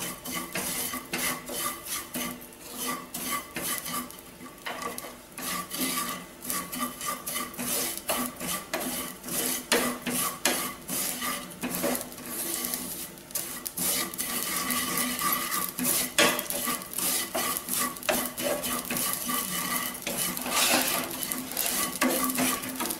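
Spatula stirring and scraping poppy seeds roasting in ghee across a non-stick frying pan: a quick, irregular run of scrapes and light taps against the pan.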